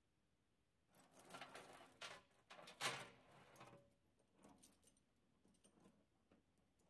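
Steel log chain clinking and jangling as it is handled at a tractor's loader bucket. A burst of rattling starts about a second in and lasts about three seconds, followed by a few faint scattered clinks.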